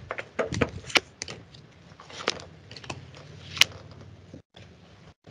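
Irregular clicks, taps and rustles of tarot cards being shuffled and laid out. The line drops out to silence twice, briefly, near the end.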